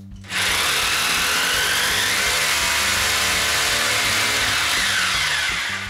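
Corded handheld power tool running against the wall at floor level for about five seconds. It starts abruptly, keeps a loud, even whirring, then slows and dies away near the end.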